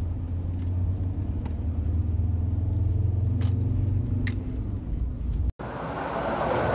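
Road and engine noise inside a moving vehicle's cabin: a steady low drone. About five and a half seconds in it cuts off abruptly and gives way to an even, rushing outdoor noise.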